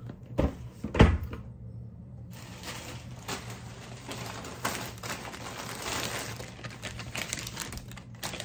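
Two dull thumps about a second in as packaged items are set down, followed by steady rustling and crinkling of plastic packaging being handled.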